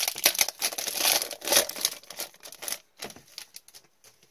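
Foil trading-card pack wrapper torn open and crinkled by hand: a dense crackling rustle for about three seconds. It thins to a few light clicks near the end.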